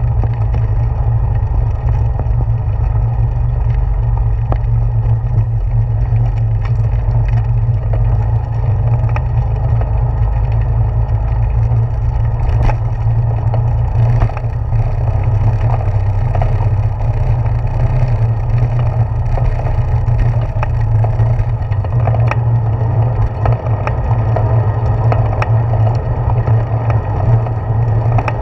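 Bicycle tyres rolling over a wooden plank boardwalk, picked up by a handlebar-mounted camera: a steady low rumble with scattered clicks and knocks.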